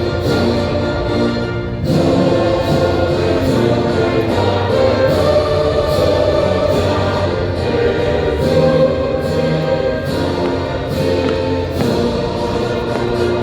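Orchestral music with a choir singing, the soundtrack of a fireworks show, with frequent short sharp hits throughout.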